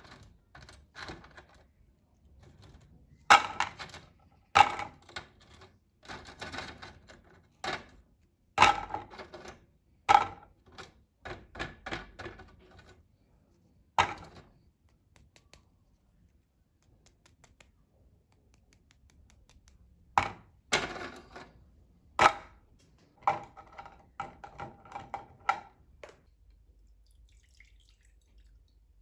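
Hard dried scallops being picked off plastic dehydrator trays and dropped into a clear plastic container: scattered sharp clicks and taps, some single and some in quick runs, with the odd knock of the trays.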